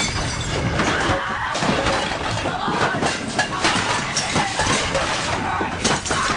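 Dense film action sound mix: a steady run of crashes and breaking impacts with voices mixed in.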